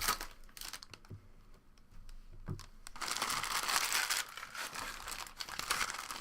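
Trading-card pack wrappers being torn open and handled. A few light clicks come in the first second, then a dense crinkling rustle from about halfway in.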